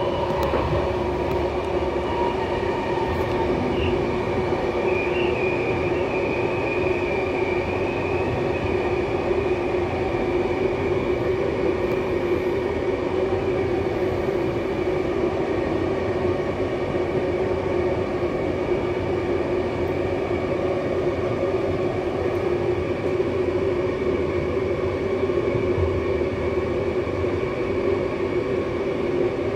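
Intercity passenger train running on the rails, heard from inside the last carriage: a steady rumble of wheels on track with a low hum. About four seconds in, a thin high wheel squeal rises for a few seconds, then fades back under the rumble.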